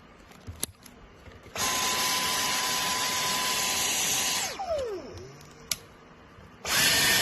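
Dyson cordless vacuum cleaner motor: after a click it starts up and runs with a steady high whine for about three seconds, then spins down with falling pitch. After another click it starts again with a higher-pitched whine, as at a higher power setting.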